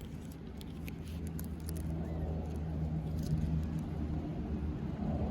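Low, steady engine rumble that grows gradually louder, with a few faint metallic clicks like keys being handled.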